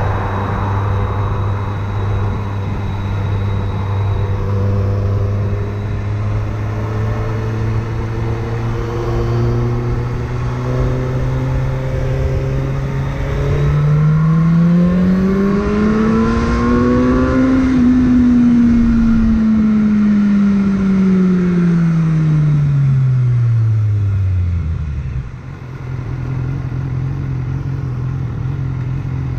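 BMW S1000R inline-four engine cruising at steady revs, then revving up over a few seconds and winding smoothly back down as the bike slows, before settling to steady revs again; wind noise runs underneath.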